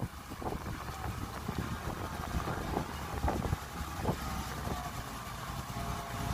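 Diesel engine of a loaded dump truck running with a low, steady rumble as the truck reverses slowly along a dirt road. A few short knocks come in the first few seconds, and a faint whine rises later.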